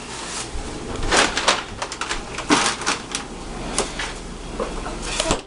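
Hot oil sizzling as chicken tenders fry, a steady hiss with frequent sharp pops and crackles; it stops abruptly near the end.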